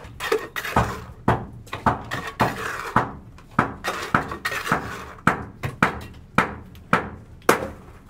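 Construction work by hand: a run of hard knocks, about two a second, with scraping in between.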